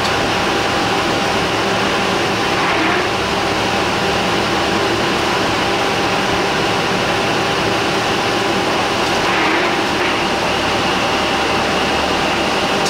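Loud, steady cabin noise inside a running city bus: engine and road noise, with a thin steady whine throughout.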